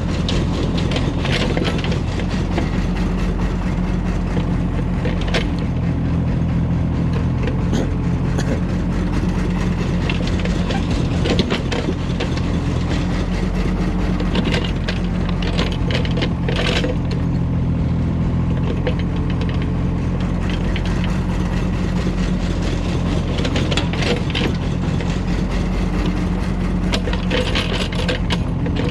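Kobelco excavator's diesel engine running steadily at work loading soil, with scattered knocks and clatter.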